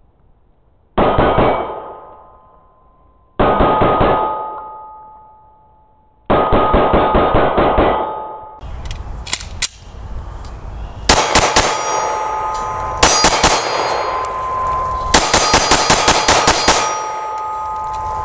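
9mm Glock 19 pistol shots, each hit making a steel silhouette target ring out: two single shots about a second and three and a half seconds in, then quick strings of shots from about six seconds on, with the steel ringing almost without a break near the end.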